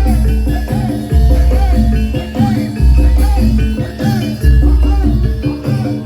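Loud barongan accompaniment music: a deep bass note about every second and a half, shaker-like percussion, and a bending melody line over steady pitched notes.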